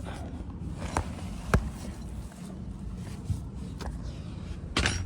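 A person shuffling and scraping while crawling out from under a vehicle, with a few sharp knocks, the sharpest about a second and a half in.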